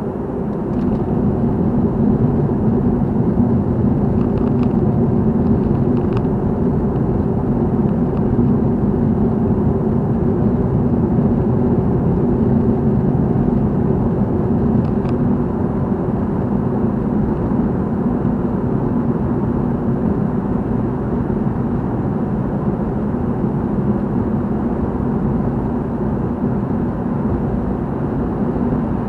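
Car driving, heard from inside the cabin: a steady drone of engine and tyre noise on the road, with a few faint ticks.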